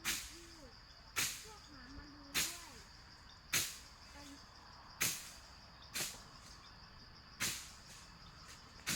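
Repeated sharp strikes, eight of them, about one every 1.2 seconds, each with a short fading tail, over a steady high-pitched hum.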